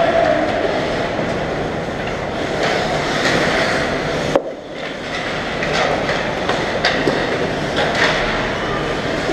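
Ice hockey play near the net: skates scraping and carving on the ice, with sticks clattering in a steady din of small clicks. One sharp knock comes about four and a half seconds in.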